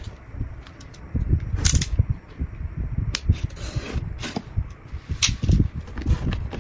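Cardboard shipping box being handled and opened: irregular thumps and scrapes of the cardboard, with a box cutter slitting the packing tape along the seam and the flaps pulled apart.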